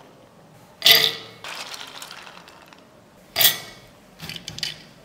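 Soaked green gram (mung beans) tipped from a steel bowl into a steel mixer-grinder jar, clattering against the metal in two loud spills, about a second in and about three and a half seconds in, with a few lighter clinks near the end.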